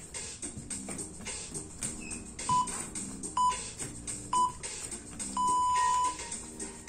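Workout interval timer beeping: three short beeps about a second apart, then one long beep, the countdown signalling the end of an exercise interval. Background music plays underneath.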